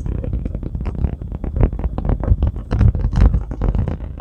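Vehicle rolling slowly over a rough, dug-up road surface: a low rumble with constant irregular knocks and rattles as it jolts over the broken ground.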